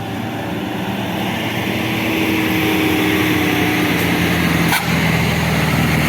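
Tour bus's diesel engine running steadily, growing gradually louder as it approaches.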